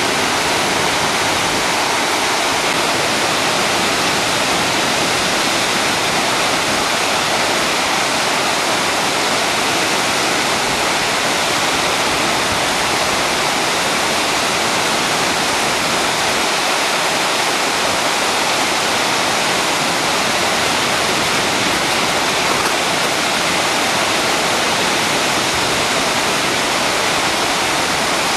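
Waterfall, partly frozen, rushing steadily: one constant, even hiss with no change.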